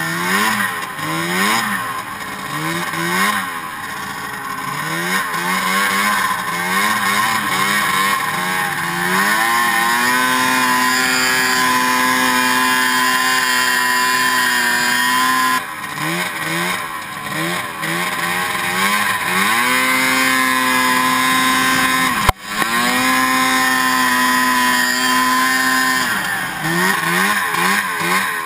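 Snowmobile engine heard from the rider's seat, revved up and down in quick repeated throttle blips, then held at a steady high pitch for several seconds at a time on the climbs, twice over, dropping back to blipping in between. About 22 seconds in the sound cuts out for an instant.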